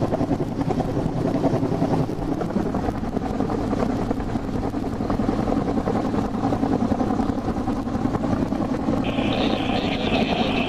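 Search-and-rescue helicopter hovering close overhead: steady rotor and engine noise. A steady higher hiss joins about nine seconds in.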